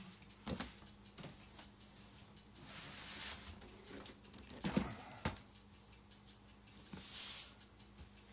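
Large cardboard model-kit boxes being handled: a few light knocks and taps, with two longer sliding rustles of cardboard, about three seconds in and about seven seconds in.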